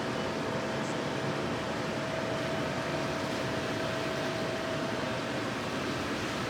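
Steady background hiss with a faint constant hum; no crossing bell is ringing.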